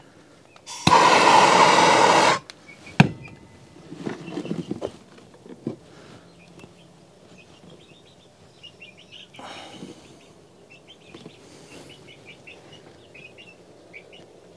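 Handheld gas torch firing in a short burst of about a second and a half, a loud hiss of flame heating a PVC pipe so a watering nipple will thread into it. A single sharp knock follows, then soft handling of the pipe and fitting, with faint bird chirps near the end.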